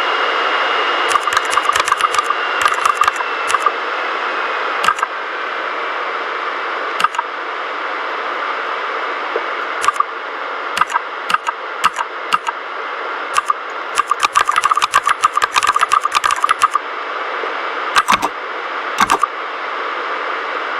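Typing on a mechanical keyboard with red (linear) switches: scattered keystrokes and a fast run of them about two-thirds of the way through, with a couple of heavier thuds near the end, over a steady hiss.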